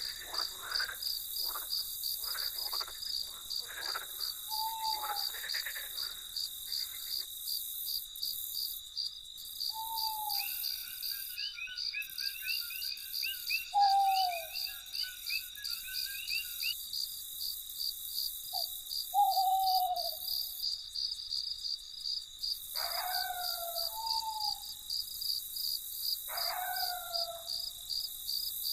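Field crickets chirping in a fast, steady pulse, with a night bird's short falling call every few seconds. A separate trill comes in about ten seconds in and stops about six seconds later.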